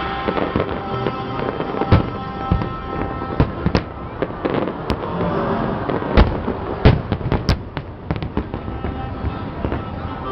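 Fireworks going off: an irregular string of sharp bangs and cracks, the loudest about six and seven seconds in, over background music.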